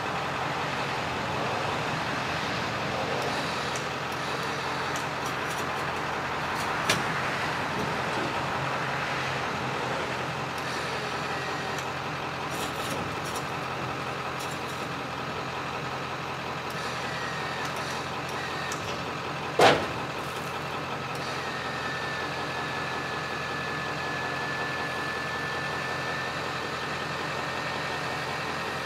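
Truck engine idling steadily, broken by two sharp knocks about 7 and 20 seconds in, the second the louder. A steady high whine sets in about two-thirds of the way through.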